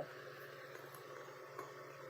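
Quiet background with a faint steady hiss and low hum, and one small click about one and a half seconds in.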